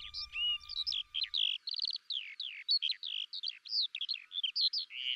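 Eurasian skylark singing: a long, unbroken stream of rapid chirps, trills and warbles. Background music fades out under it in the first second and a half.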